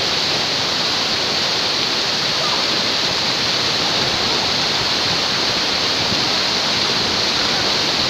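Waterfall and the rushing stream below it: a loud, steady rush of falling and tumbling water.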